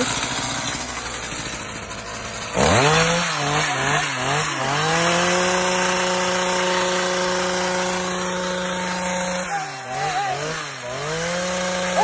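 Small petrol engine running: it idles low, then is revved sharply to high speed about two and a half seconds in and held there. Near the end it drops back and wavers, revs up again, then falls away.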